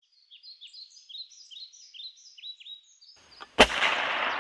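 Bird song, a quick run of short falling chirps, followed about three and a half seconds in by a brief rising whoosh that ends in a sharp bang, fading away over about a second.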